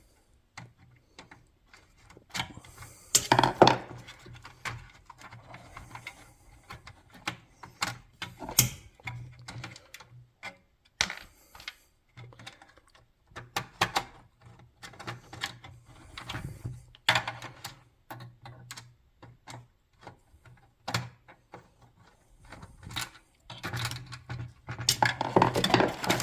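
Irregular clicks, taps and knocks of hands and a screwdriver on the plastic housing and control board of a garage door opener, as the board is worked at to free it. A few louder clusters of clatter come along the way.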